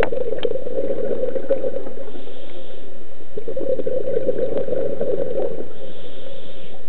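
A scuba diver breathing through a regulator underwater: two long gurgling bursts of exhaled bubbles, each followed by a short hiss of inhalation.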